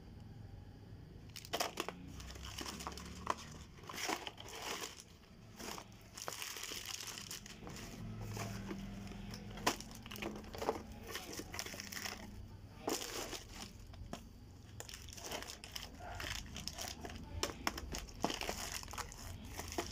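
Plastic chocolate-bar wrappers crinkling and rustling as hands handle and shuffle a pile of wrapped bars, with irregular sharp crackles. The crinkling starts about a second and a half in.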